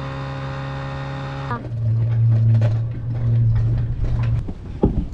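Outboard motor running steadily at speed, a steady tone with many overtones, which cuts off suddenly about a second and a half in. A lower, louder engine hum follows and stops near the end, then a single knock.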